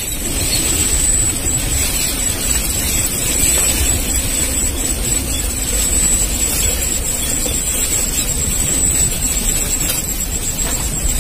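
Steady rumble and noise of a vehicle running and on the move, with a thin steady high tone over it.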